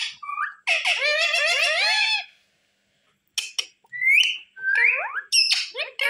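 Indian ringneck parakeet chattering and whistling: a long warbling chatter about a second in, a short pause, then brief calls and rising whistles.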